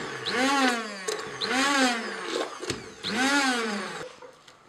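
Hand-held immersion (stick) blender running in a steel saucepan of banana batter. Its motor whine swings up and down in pitch over and over, a little faster than once a second, as it churns the mix. It cuts off near the end.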